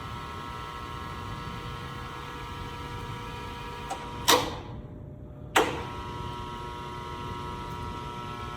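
Electric welding positioner running with a steady hum and whine. About halfway through it stops with a loud click, and after a second or so a second loud click starts it again.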